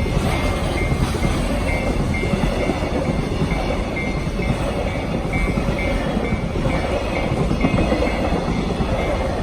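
Freight train running past at close range, a steady rumble of wheels on rail. A Japanese level-crossing warning bell rings about twice a second over it.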